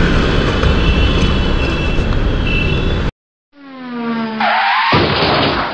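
Steady road and wind noise from riding a motorcycle in city traffic, picked up by an action camera, which cuts off abruptly about three seconds in. After a brief silence a short synthesized outro sound effect plays, with a rising tone and then a sudden swell of noise.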